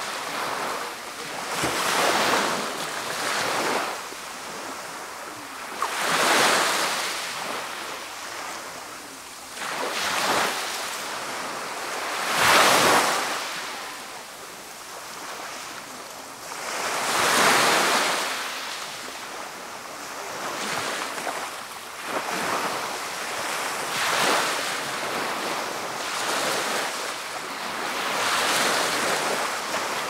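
Small sea waves breaking and washing up the shore, each wave a swell of surf that rises and falls away, about eight of them, every two to five seconds.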